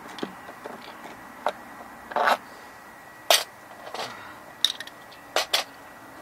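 Scattered sharp clicks and short scrapes, about seven in all and one slightly longer, from a screwdriver and hands working at the old RV water heater's metal fittings and compartment.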